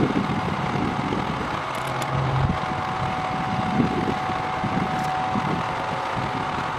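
Heavy truck engine running steadily, with a steady high whine over it and a few light knocks and ticks.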